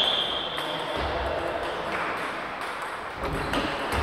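Scattered sharp clicks of celluloid table tennis balls striking tables and bats during play at the neighbouring tables. A high, steady ringing tone stops about a second in.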